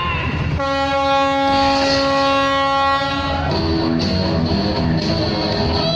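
A single long, steady, horn-like tone is held for about three seconds over loud show music. The music then carries on with shorter changing notes.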